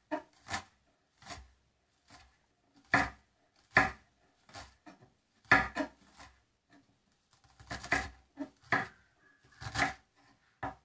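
Large kitchen knife finely dicing an onion (brunoise) on a plastic cutting board: slow, uneven chops, each a short sharp knock of the blade on the board, about one a second with some quicker pairs.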